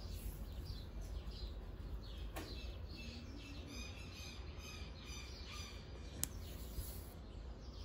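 Faint bird chirping in the background, with a couple of small sharp clicks, the clearer one about six seconds in.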